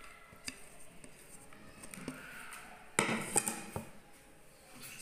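Kitchen utensils against a mixing bowl: a few light taps, then a short burst of knocking and clatter about three seconds in as a container and spatula knock against the bowl while chopped vegetables are added.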